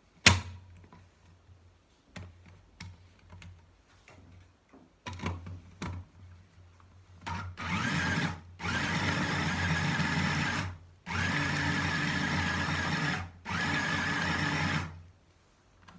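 A sharp knock and scattered light clicks and knocks, then an electric kitchen blender runs in four pulses of one to two seconds each, grinding chopped dried figs with olive oil and honey into a thick paste.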